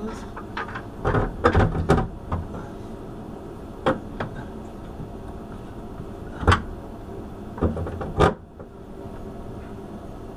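Metal clunks and knocks from a Tormach mill's worn Y-axis ball screw and ball nut being handled and shifted by hand. A cluster of them comes between one and two seconds in, with single sharp ones later, over a steady hum.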